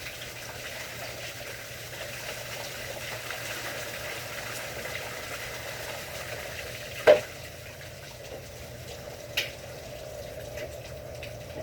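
Steady hiss of rain falling, with one sharp knock about seven seconds in and a fainter one two seconds later.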